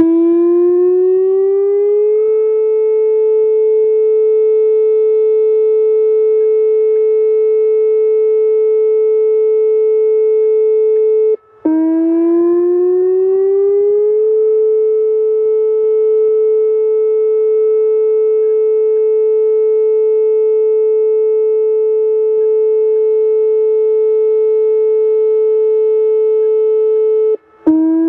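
Whelen 2805 electronic civil defense siren sounding a test signal. Each time it starts, it slides up in pitch over about two seconds and then holds one steady note. It cuts out briefly about eleven seconds in and again near the end, restarting each time with the same rising slide.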